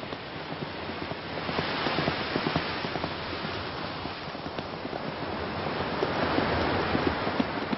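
Horses galloping on a sandy beach, their hoofbeats thudding irregularly, over the hiss of breaking surf that swells about a second and a half in and again near the end.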